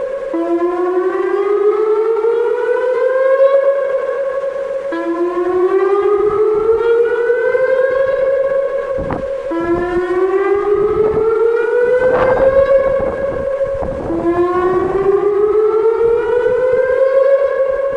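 Whelen WPS-2906 electronic warning siren (560 Hz) sounding its whoop signal for a severe thunderstorm warning: a loud tone that rises steadily over about three seconds, holds at the top briefly, then drops back and starts again, four times over. Low rumbling buffets come and go through the middle.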